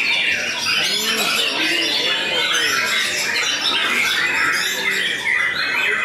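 White-rumped shamas (murai batu) singing in their cages, a dense, unbroken tangle of rapid whistles and chatter from several birds at once.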